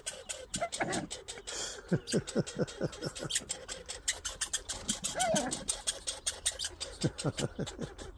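Small animals feeding at close range: a steady patter of clicks and crunching, with two runs of short, quickly falling squeaks and a single rising-and-falling call near the middle.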